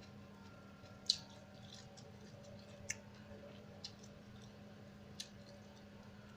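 Cutlery clicking against a plate four times during a meal, the first click the loudest, over a steady low hum.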